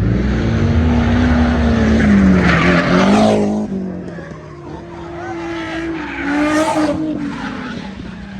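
Drift cars sliding past at high revs with tyres squealing. The first car is loud, its engine note dipping and climbing, then fades about four seconds in. A second car's engine follows, quieter.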